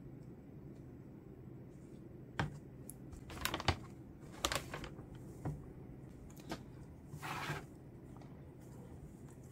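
Light clicks, taps and rustles of hands handling plant pots and leaves, with a slightly longer rustle about seven seconds in.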